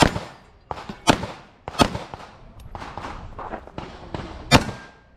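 Handgun shots fired one at a time at uneven intervals during a timed IPSC stage. There are four loud cracks, near the start, at about one and two seconds in, and near the end, with a few fainter shots between them.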